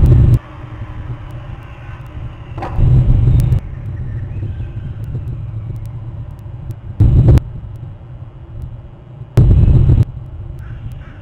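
Four loud, low rumbling bursts of wind buffeting an outdoor webcam microphone, about a second apart at first and then several seconds apart, over a steady background hiss.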